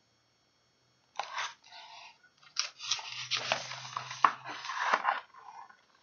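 Paper rustling and crackling as a picture-book page is turned and the book is handled, in several bursts starting about a second in.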